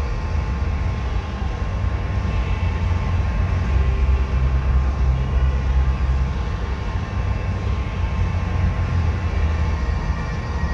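Spray booth's ventilation fans running: a steady low rumble with a few faint steady tones above it.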